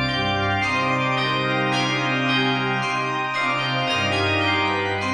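Background music: slow, sustained organ chords that shift every second or so.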